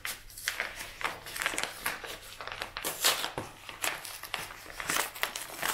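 Loose packing material in a shipping box crinkling and rustling as hands dig through it, a quick irregular run of crackles.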